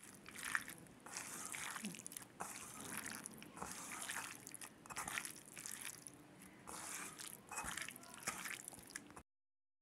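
Hands squeezing and mashing cubed raw chicken breast with raw onion, spices and oil in a pan: wet squelching and squishing in repeated strokes, about one or two a second. It cuts off abruptly just before the end.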